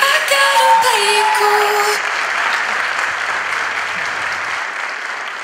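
Audience applauding as the final notes of the music end about two seconds in; the clapping carries on alone and slowly fades.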